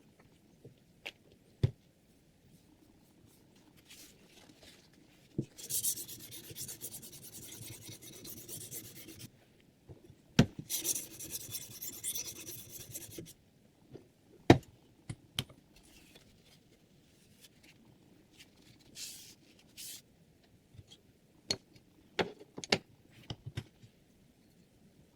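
A sharpening stone on a Hapstone R2 guided knife sharpener rasps against the blade in two runs of strokes, about four and three seconds long. Sharp clicks and knocks of handling come before, between and after the runs.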